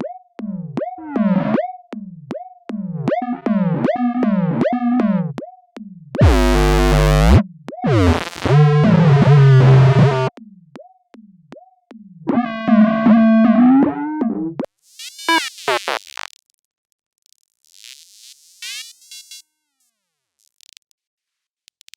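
Synthesized robot-droid beeps and whistles in the style of R2-D2: a string of short swooping notes, then a loud harsh buzz about six seconds in, followed by warbling electronic chirps. The last third is quieter, with a few faint high trills and gaps of near silence.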